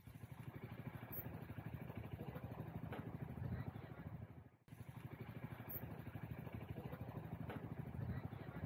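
A motor running steadily with a rapid, even throb, cutting out for an instant about halfway through.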